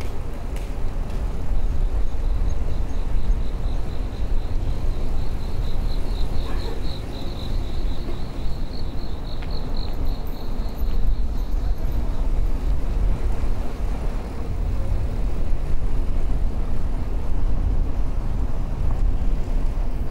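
Steady low rumble of wind on the microphone and of tyres on the road during a bicycle ride. For several seconds in the middle a pulsing, high-pitched buzz rises above it.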